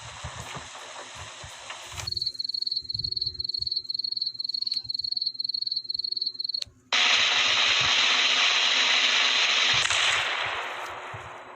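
A run of stock editing sound effects: a hiss of noise, then a high beeping that pulses a few times a second, a short gap, and a loud burst of even noise that fades away near the end.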